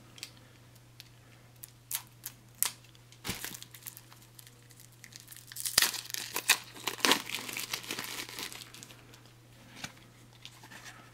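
Clear plastic wrap being pulled off a deck of game cards, crinkling in scattered crackles at first and in a denser run about halfway through.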